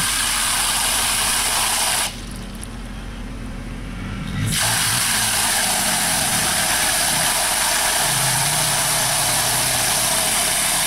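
Water hissing from a hose spray nozzle onto the convertible-top linkage and base plate; the spray stops about two seconds in and starts again a couple of seconds later. Under it, the BMW E46 convertible's engine idles steadily, left running to keep the hydraulic top pressurized.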